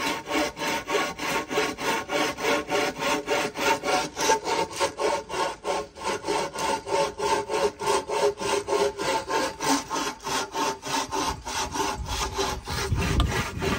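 Hand bow saw cutting through a wooden pole in quick, even back-and-forth strokes, about three a second.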